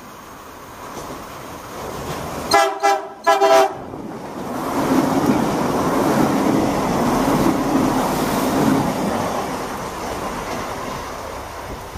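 Irish Rail 22000 Class diesel multiple unit sounding two short horn blasts on its approach, then rushing through the station at speed, its rumble and wheel noise building, peaking and fading as it goes away.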